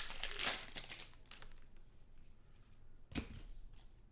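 Foil wrapper of a Donruss football card pack crinkling and tearing as it is ripped open, loudest in the first second. Then softer rustling and clicks of the cards being handled, with a single knock about three seconds in.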